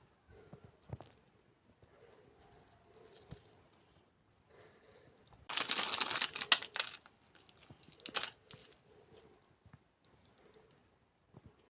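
Small accessories and their plastic packaging being handled: scattered light clicks and rattles, with a loud rustling rattle of about a second and a half midway and a shorter one a little later.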